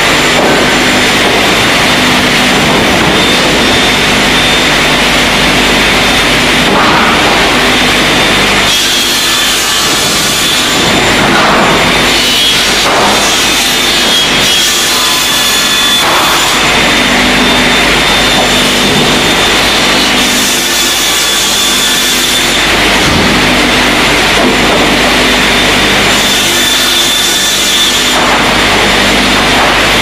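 LarMET ZRG-series board trimmer and its chain conveyors running loud and steady, with trim saws cutting boards. The sound changes in character every few seconds as boards pass through.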